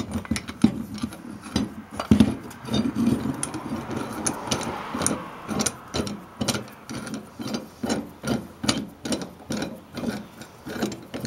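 Steel C-clamp being set on a brake caliper and its screw cranked down to press the new piston into the bore: metal clanks and knocks at first, then a steady run of clicks about two or three a second as the handle is turned.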